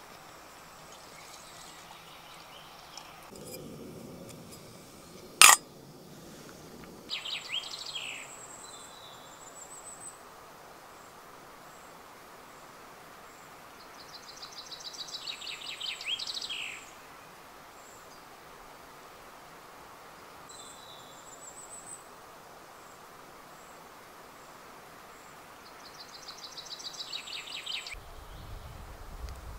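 A small songbird sings the same short phrase three times, about every ten seconds: a quick run of high notes ending in a falling flourish, over a steady faint woodland hiss. A single sharp click a little after five seconds in is the loudest sound, amid a few seconds of low rustling.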